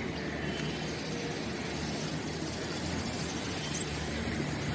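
Steady background noise with a faint low hum, without distinct events.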